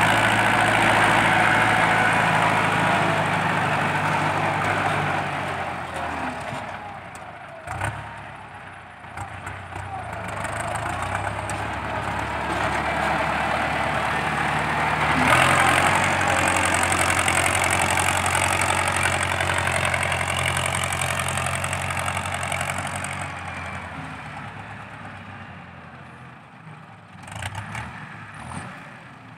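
Ford 6640 diesel tractor engine running under load through its upright exhaust stack while the tractor pushes dirt with a front blade. The engine eases off about six seconds in and rises sharply in pitch and loudness about fifteen seconds in, then fades near the end as the tractor moves off.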